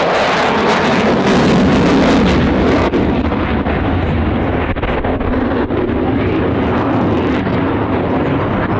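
Jet noise from an RAF Eurofighter Typhoon's twin turbofans at high power during its display, a loud steady rushing sound. Its high hiss is strongest for the first three seconds or so, then it softens into a duller rumble.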